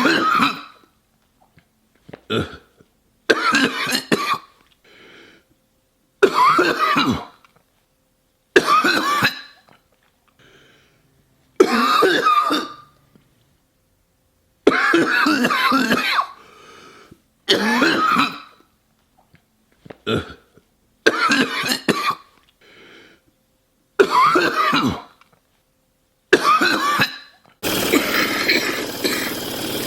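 Human coughing in a rapid series of separate bouts, about fifteen short coughing fits cut one after another with brief silences between. Near the end a steady, loud rushing noise sets in and continues.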